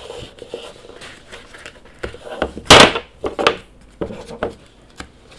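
Hands handling a smartphone's retail box and packaging: scattered taps, scrapes and rustles, the loudest a short noisy rustle about three seconds in.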